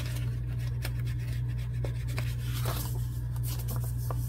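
Ink blending tool's foam pad rubbing and dabbing ink along the edges of a paper pocket: a few faint, short scratchy strokes over a steady low hum.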